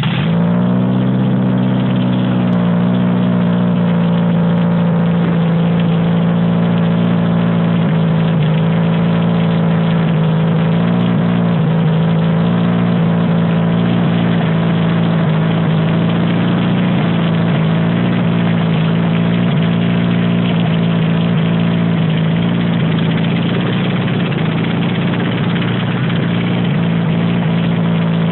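Toyota engine belt-driving a homemade air compressor, running at a steady speed after settling just after starting, on its first test run.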